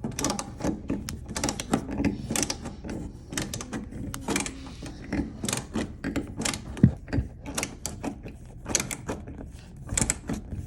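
Engineer DR-54 ratcheting stubby screwdriver clicking in irregular runs as it drives a screw through a cabinet back into a wall stud, with a louder knock about seven seconds in.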